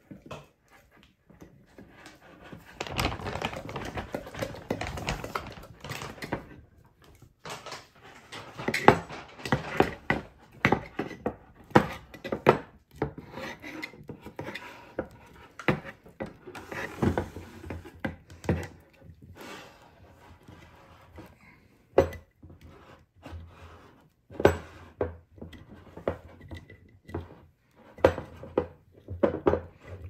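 A wooden-handled spatula stirring and scraping a thick sourdough starter of flour and water around a glass mason jar, with repeated sharp clicks and knocks against the glass.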